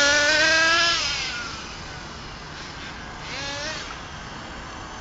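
HPI Rush Evo nitro RC truggy's small two-stroke glow engine at full throttle, its pitch rising for about a second as the truck speeds away, then fading into the distance. A brief, fainter rev comes from it about three and a half seconds in.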